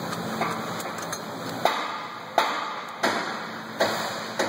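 BMW N54 turbocharger wastegate flap being wiggled by hand, clicking about five times at a little under a second apart from about one and a half seconds in. The clicks come from axial play in the worn wastegate pivot, the wear behind the N54 turbo rattle.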